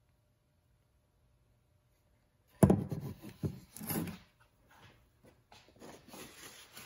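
Near silence, then about two and a half seconds in a hard black plastic car console panel is set down on a wooden workbench: a sharp knock, a short run of clatter and scraping, then a few light handling ticks.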